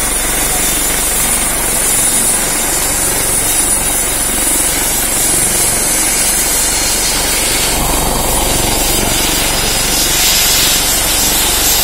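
Helicopter's turbine engine running on the ground: a steady rushing noise with a thin, constant high whine over it.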